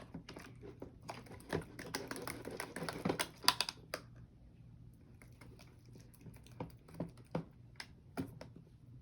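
Freshly activated clear glue slime being stirred in a container, giving irregular sticky clicks and pops. They come thickest for a couple of seconds near the start, then thin out.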